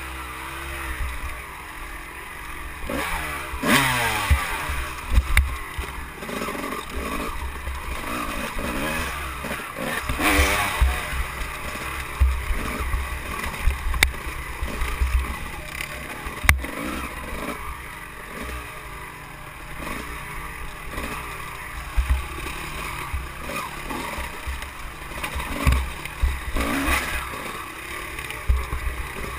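Dirt bike engine revving up and falling back several times as the bike rides a rough, dusty trail, with frequent low thuds throughout.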